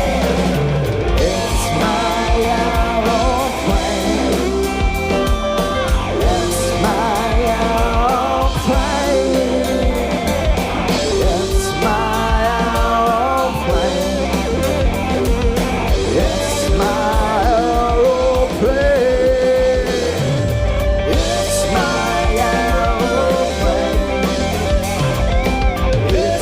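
Live rock band playing an extended instrumental jam, with a lead line bending and wavering in pitch over bass and drum kit.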